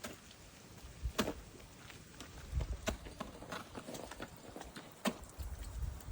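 Footsteps crunching on ice and packed snow: a handful of sharp, uneven clicks a second or two apart, over a low rumble of wind on the microphone.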